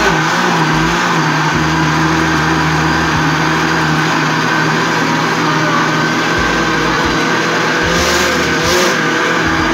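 Countertop blender motor running steadily at full speed, blending a liquid batter of eggs, milk, oil and flour.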